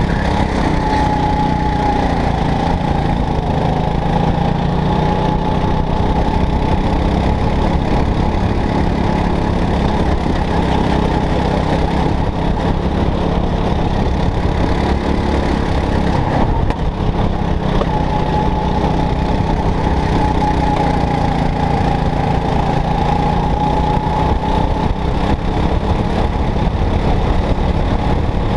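Racing go-kart engine running hard, heard close up from on board the kart, its pitch drifting gently up and down. A high whine comes in twice, about a second in and again some eighteen seconds in.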